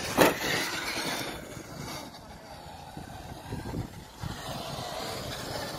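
Traxxas X-Maxx electric RC monster truck landing a jump with a sharp thud about a quarter second in. Its electric motor then whines, rising and falling as it drives on over the dirt track.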